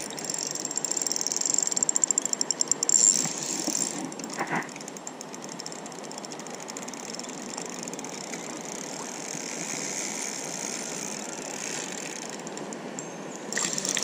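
Spinning reel clicking rapidly for about three seconds while a hooked smallmouth bass is played, then the steady rush of river water.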